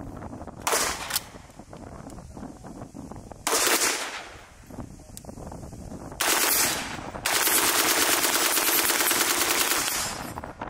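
AR-15-pattern rifle firing on full auto: three short bursts, then one long burst of about three seconds.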